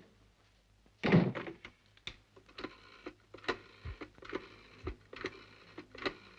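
A desk telephone's receiver is lifted with a loud clunk about a second in. Then comes a string of clicks, about two a second, as a number is dialled.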